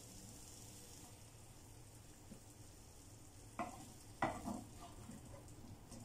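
Potatoes and carrots sizzling faintly in a frying pan, with a spatula scraping and knocking against the pan twice, a little past halfway, as the vegetables are scooped out.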